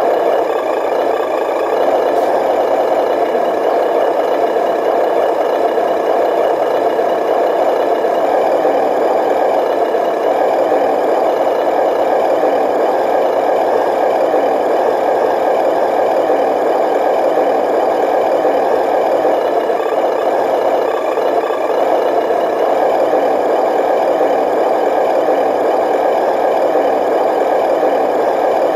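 Radio-controlled MAN truck pulling a brick-loaded flatbed trailer, running with a steady, unchanging mechanical whir.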